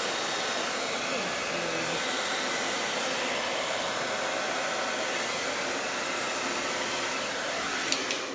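Handheld blow dryer running steadily, blowing wet paint across a canvas to spread it into a corner. A sharp click comes near the end, and the airflow stops.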